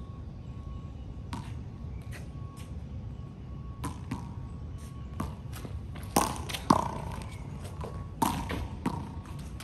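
Rubber handball slapped by hand and bouncing off the concrete court floor and wall during a rally: a series of sharp smacks with a short ringing echo. There are lighter taps in the first few seconds and louder smacks from about six seconds in.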